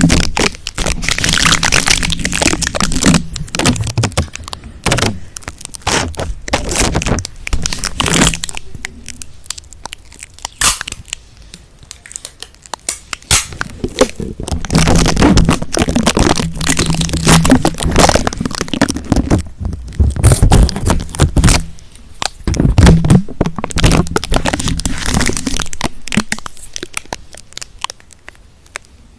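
Sticky-texture ASMR trigger: fingers pressing onto and pulling off a sticky surface, making dense, crackling clicks in clusters with short quieter pauses.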